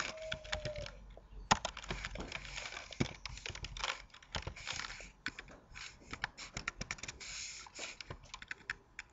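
Typing on a computer keyboard: a run of irregular key clicks with short pauses between them.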